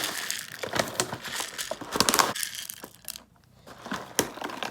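Cat food being handled at the feeding dishes: crinkling and crunching with scattered small clicks, and a louder rustling burst about two seconds in.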